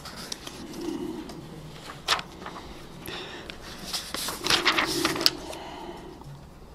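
Paper pages of a Quran being leafed through: scattered crisp page-turn rustles, the sharpest about two seconds in and a cluster of them around five seconds in.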